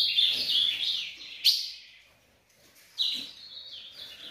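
Caged songbird singing: a fast warbled run of stepped notes, then a sharp chirp about a second and a half in. After a short pause, another brief phrase comes about three seconds in.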